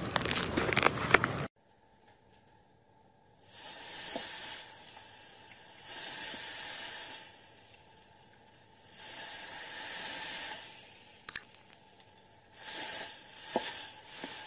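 Slime being kneaded by hand, a dense squishing crackle, stops abruptly about a second and a half in. Then a large knife slices slowly down through a soft block again and again, a hissing scrape with each stroke, about five strokes with pauses between them. There is one sharp click partway through.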